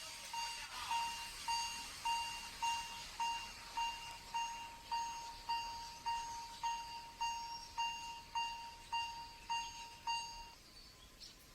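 Electronic warning signal beeping at one steady pitch, about two beeps a second, then stopping near the end.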